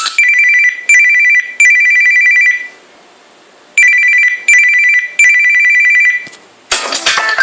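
A Samsung Galaxy Tab 2 ringtone imitating an old telephone ring: a fast electronic two-tone trill in three short rings, a pause of about a second, then three more. Near the end the next ringtone, with guitar and drums, begins.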